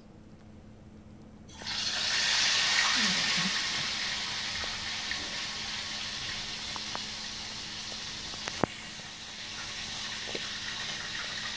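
A steady rushing hiss like running water from a tap starts suddenly about a second and a half in, loudest at first and then running on evenly. A short pitched vocal glide sounds about three seconds in, and a single sharp click comes past the middle.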